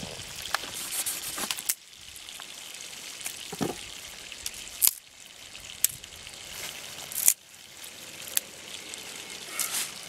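Dry twigs snapping sharply, one at a time, as they are broken by hand for kindling, over a steady rushing hiss of flowing river water.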